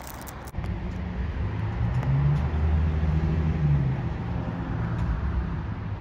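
A motor vehicle's engine running as it passes close by, with traffic noise. It swells to its loudest about two to four seconds in, then eases off and cuts off abruptly at the end.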